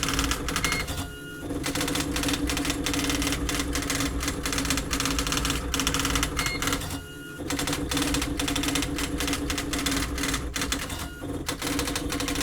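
Xerox Memorywriter 6010 daisy-wheel electronic typewriter printing automatically: a rapid stream of print-hammer strikes over a steady motor hum, broken by about three short pauses.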